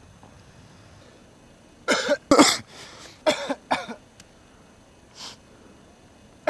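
A person coughing hard, four harsh coughs in quick succession and then a fainter one.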